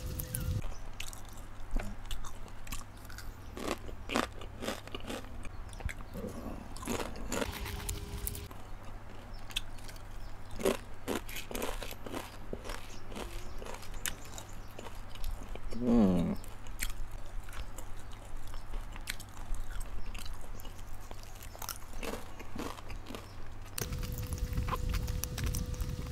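Close-up crunching and chewing of crispy chips, with irregular sharp bites and crunches. About two-thirds of the way through there is a short falling pitched sound, which is the loudest moment.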